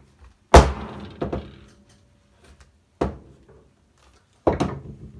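Claw hammer knocking on a hardboard-backed door panel lying on a wooden workbench: four hard knocks, the first the loudest, about a second in.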